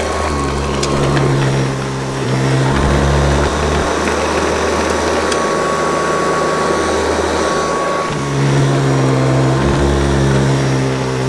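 Hoover Convertible U4387 upright vacuum cleaner running as it picks up a mess, with a steady motor hum whose note shifts a few times. Now and then there is a sharp tick.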